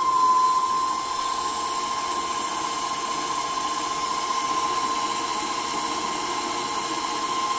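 Small CNC lathe turning a bar in a four-jaw chuck on a turning-cycle pass: the spindle runs with a steady high whine while the tool cuts along the work.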